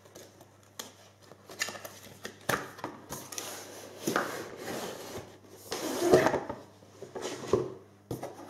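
Cardboard graphics-card box being opened and handled: the black inner box slides against its outer sleeve with rubbing and scraping, and there are a few short knocks of cardboard on the table.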